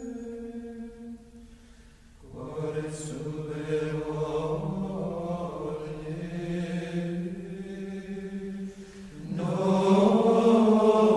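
Slow sacred chant, voices holding long notes without a beat. The held note drops lower after a short pause about 2 s in, then rises again and grows louder about 9 s in.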